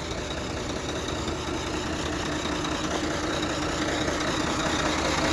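Diesel truck engine idling steadily, growing a little louder.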